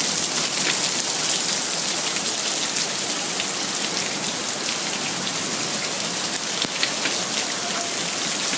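Hailstorm with heavy rain: a steady downpour hiss over surfaces, with scattered sharp ticks of hailstones striking.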